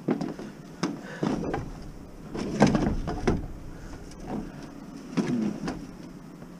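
Plastic Thule rooftop cargo box being handled at its lid: a string of short knocks and clunks as the lid and its rails are pushed and shifted, the loudest about two and a half seconds in.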